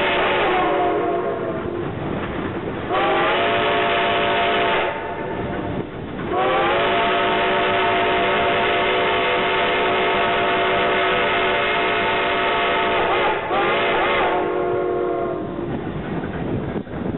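Shay No. 6 steam locomotive's whistle blowing a series of blasts: one dying away about two seconds in, a short blast, a long blast of about seven seconds, and another short one, each sagging in pitch as it ends. The train's running noise carries on beneath.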